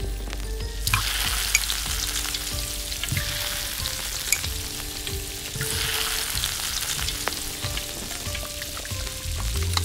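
Peeled boiled eggs sizzling in hot oil in a small iron kadai. The sizzle starts about a second in as the eggs go into the oil, then swells again a little past halfway.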